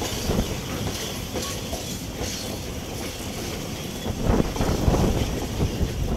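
Freight train of open-top wagons rolling past, its wheels clattering over the rail joints, with several louder knocks from about four seconds in.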